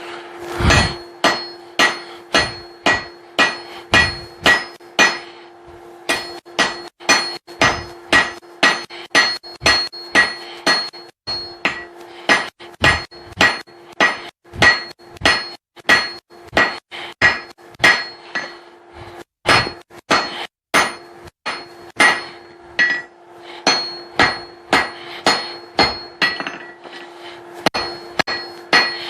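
Hand hammer forging hot steel on an anvil, a steady run of blows about two a second, each with a ringing clang, with a couple of brief pauses; the blows are drawing out the taper of a hammer eye punch.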